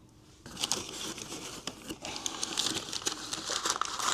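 Packaging crinkling and rustling as it is handled, with irregular crackles and small clicks, starting about half a second in.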